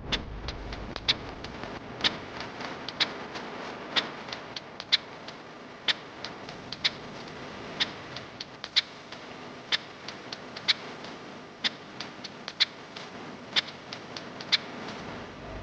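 Sharp clicks at a fairly even pace of about one a second, with fainter clicks between them, over a steady hiss.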